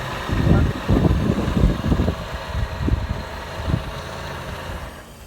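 Honda CR-V power steering rattling as the steering wheel is turned with the engine idling, in uneven loud knocks over the steady run of the engine. The pump is drawing in air past a missing seal, which foams the power steering fluid.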